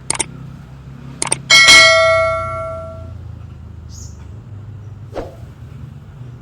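A couple of sharp clicks, then a single bell strike that rings and fades away over about a second and a half.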